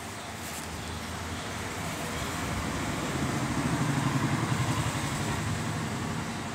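A motor vehicle's engine rumbling, swelling to its loudest about four seconds in and then fading away.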